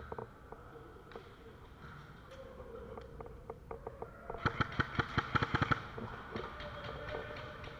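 Airsoft gun firing a rapid string of about a dozen sharp shots over a second and a half, about four and a half seconds in, with scattered lighter clicks before and after.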